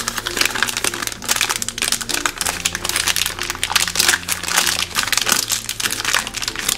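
Thin clear plastic bag crinkling continuously as hands handle it, with small plastic toy pieces shifting inside.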